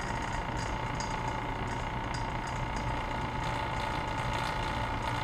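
Small electric vacuum pump running steadily with a constant hum and whine, pulling a vacuum on a workholding vacuum puck against a granite surface plate.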